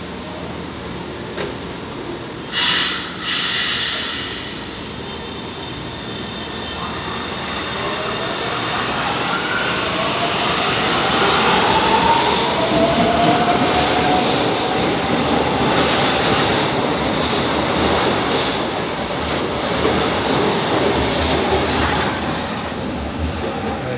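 São Paulo Metro Line 1 train pulling out of the station and passing close by: two short loud hisses about three seconds in, then a whine rising in pitch as it picks up speed, with the wheels squealing again and again on the curved track.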